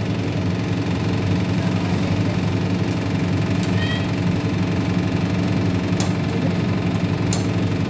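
A steady machine hum runs throughout, with a few short, light clinks of a utensil against a steel cooking pan.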